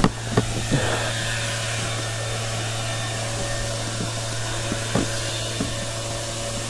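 Footsteps on a leaf-covered dirt trail, a few soft knocks at uneven intervals, over a steady rushing noise with a low hum.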